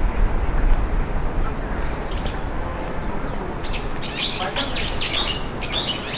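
Wind buffeting the microphone with a low rumble for the first second or so, over general street noise. Near the end comes a quick series of high, arching chirps from small birds.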